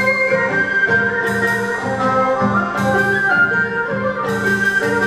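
Traditional Vietnamese ensemble music: a bamboo flute melody over plucked strings, with some notes gliding in pitch and a few sharp percussion strikes.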